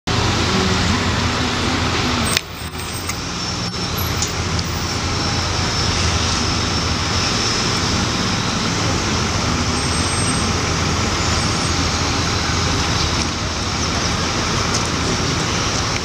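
Road traffic: cars and trucks running in the street over a steady low engine hum. The sound drops away suddenly for a moment about two and a half seconds in, then comes back.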